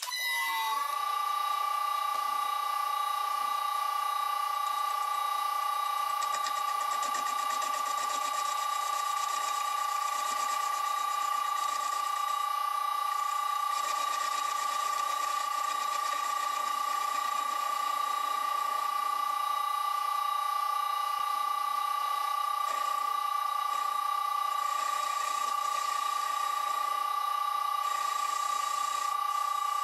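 Vintage Karger lathe's VFD-driven electric motor spinning up and then running steadily at 60 Hz, giving a loud, steady high-pitched whine that rises briefly as it starts. The tool facing off a metal test piece adds a faint cutting hiss.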